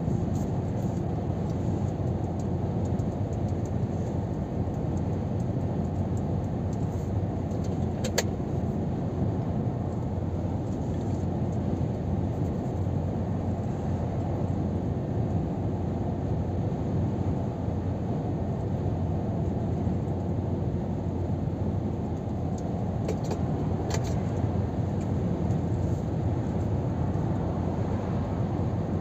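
Steady cab noise of a Scania R500 truck cruising on the motorway: engine drone mixed with tyre and road rumble, heard from inside the cab. A sharp click about eight seconds in and another a little before the end.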